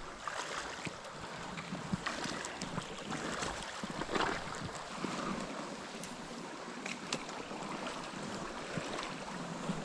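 Steady rush of a small trout creek's flowing water, mixed with wind on the microphone, with a few light clicks scattered through it.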